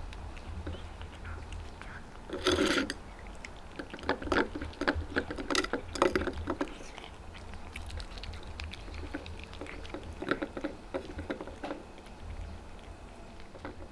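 Two cats eating treats from a stainless steel bowl: irregular crunching and small clicks of teeth and food against the bowl, busiest from about four to six and a half seconds in, with one louder rustling burst about two and a half seconds in.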